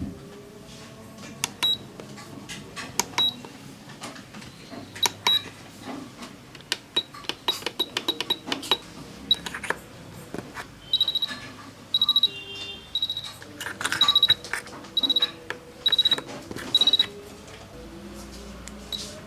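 AIFEN-A902 soldering station's buttons clicking and its buzzer giving short high beeps. Through the middle of the stretch there is a run of about eight longer beeps, roughly one every three quarters of a second.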